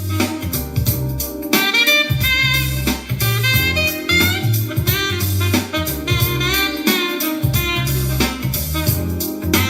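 Instrumental music with a pitched lead melody over a steady bass line and beat.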